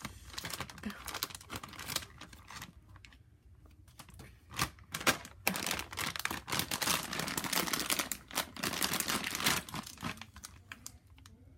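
Packaging of a TrackMaster track-piece pack being cut open and handled: irregular crinkling, tearing and small plastic clicks, in two busy stretches with a quieter gap and one sharper snap between them, fading near the end.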